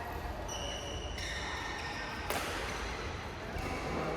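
Badminton shoes squeaking on the court floor during a doubles rally, high and drawn out, with a sharp hit a little over two seconds in.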